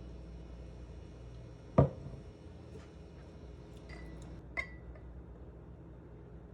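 Kitchenware being handled: one loud knock a couple of seconds in, then two light clinks, the second ringing briefly, over a low steady hum.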